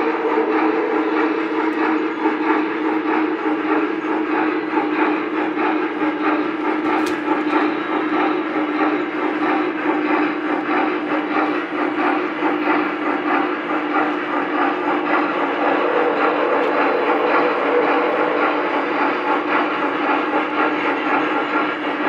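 Lionel O-gauge model trains running on the layout's main line: a steady motor hum under fast, even clicking of wheels on the rails, mixed with the locomotives' electronic steam sound effects. A single sharp click about seven seconds in.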